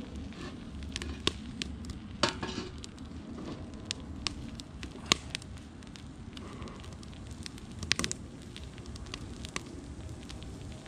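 An egg sizzling in a small frying pan over a wood fire burning in an aluminium-can stove. Sharp pops and crackles run through it, the loudest clusters about two seconds in and again near eight seconds.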